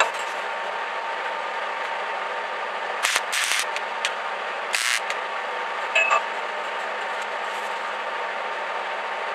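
An electric welder running with a steady hum and hiss, with a few short bursts of arc crackle about three and five seconds in as the table's steel legs are tack-welded in place.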